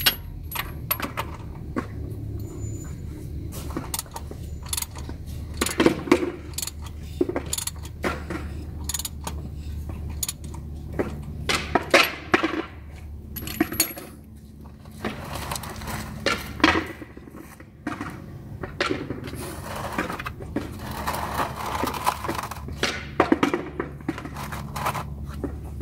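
Irregular metallic clicks and clinks of hand tools and metal parts being handled under the car.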